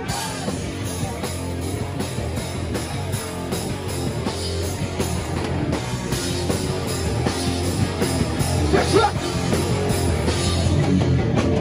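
Live hardcore punk band playing a fast, loud song with drums and guitars, recorded from the crowd.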